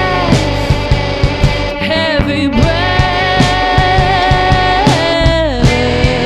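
Rock band song: drums keep a steady beat under bass and guitars. A voice sings long held notes that slide up and down in pitch.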